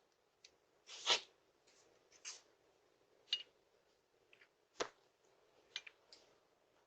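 Scattered, irregular clicks and taps over a steady low hiss from a doorbell camera's microphone, with two sharper knocks, one about a second in and one near five seconds.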